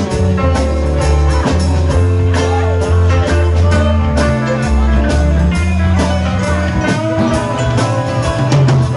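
Live rock band playing an instrumental passage: electric guitars, keyboard and drum kit, loud and steady.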